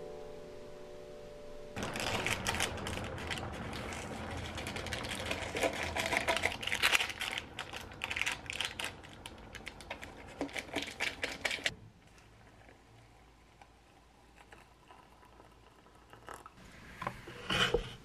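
Plastic packaging crinkling and tearing as an Ottogi cup noodle and its seasoning sachets are opened, a dense crackle of many small clicks that stops abruptly about twelve seconds in. Near the end there is a brief louder crackle as the cup's paper lid is peeled back.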